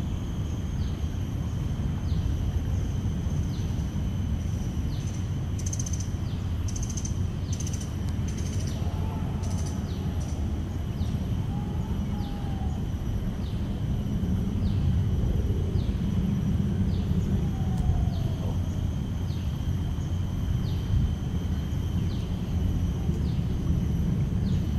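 Outdoor ambience: a steady low rumble under a steady high whine, with short high chirps repeating about once a second and a few brief bird calls between about five and nine seconds in.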